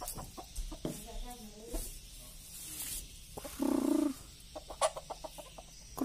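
Rooster clucking: a few soft, wavering clucks in the first second, then one louder call about three and a half seconds in, with scattered light clicks in between.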